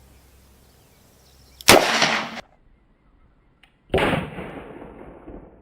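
Two loud reports from a .357 Magnum revolver (Smith & Wesson 686, 4-inch barrel) firing 158-grain rounds into a ballistic helmet, about two seconds apart. The first cuts off short; the second rings on and dies away over about two seconds.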